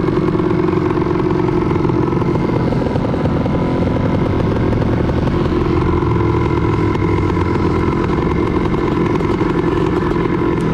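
Single-cylinder two-stroke engine of a 1985 Yamaha Tri-Z 250 three-wheeler running under way at a steady, even pitch.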